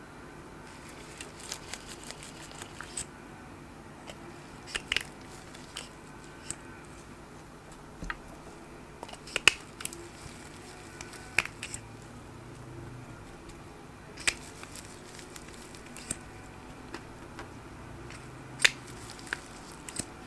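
Irregular sharp plastic clicks and taps as a lip gloss tube is handled and opened with gloved hands. The loudest come about halfway through and near the end, over a steady low background hum.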